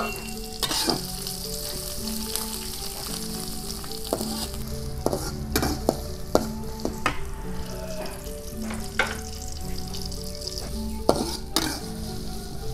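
Sliced shallots, garlic and chilies sizzling in hot oil in a steel wok as they are sautéed, with a metal spatula scraping and clicking against the wok every second or so as they are stirred.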